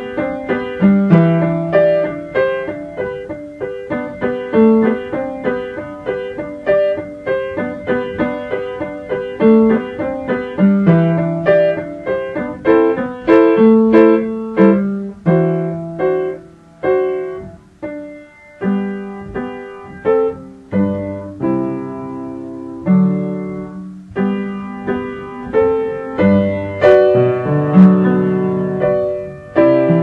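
Background piano music: a single piano playing a run of struck notes and chords, each note ringing and fading.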